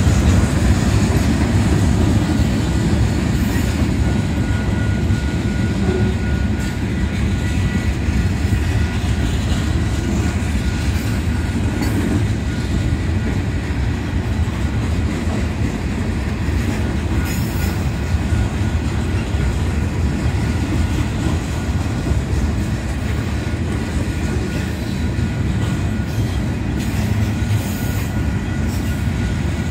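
Freight cars of a slow-moving manifest train rolling past: a steady low rumble of steel wheels on rail with a few clanks. A faint, thin wheel squeal runs through the first half.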